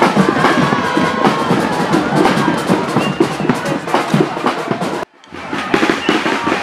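Fast, busy drumming with many rapid knocks and beats. It drops out for a moment about five seconds in, then carries on.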